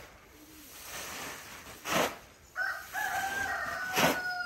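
A rooster crowing once: a long, held call that starts a little past halfway in. Two short, sharp noises come about two seconds apart, the first about two seconds in and the second near the end.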